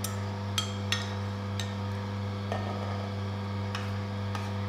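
Oscar DA1000 cold-press slow juicer running with a steady low hum as it presses soaked leaves, while a metal spoon clinks against a glass measuring jug several times.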